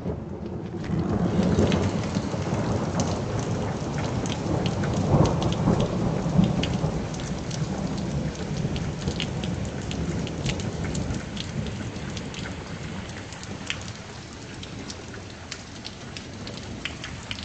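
Heavy rain falling, with many single drops ticking close by. A long low roll of thunder swells from about a second in and slowly dies away over the following ten seconds.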